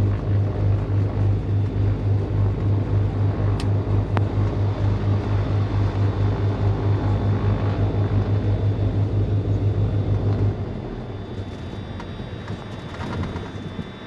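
Beechcraft G58 Baron's six-cylinder Continental IO-550 piston engines idling with a steady, evenly pulsing low throb, which cuts off abruptly about ten and a half seconds in as the engines are shut down after taxi.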